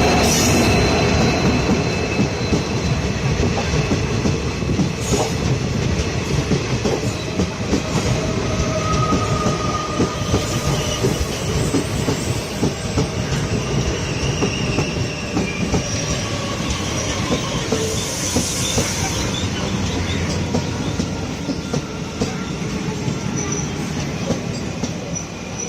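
Passenger train rolling past at close range: a steady heavy rumble of wheels on track with rapid clicking over the rails and occasional thin, high wheel squeals. It eases slightly toward the end.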